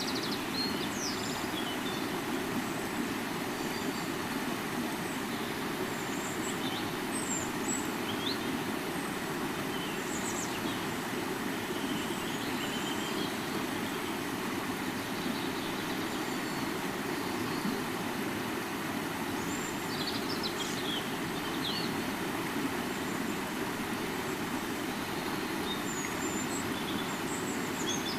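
A river flowing steadily, with a constant rushing of water. Small birds chirp now and then over it, most around twenty seconds in.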